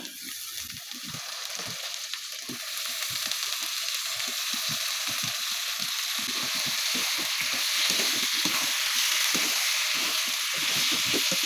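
Thinly sliced raw potatoes sizzling in hot mustard oil in a nonstick kadai, the sizzle growing steadily louder. A slotted spatula stirs them with frequent short scrapes and knocks against the pan, more often in the second half.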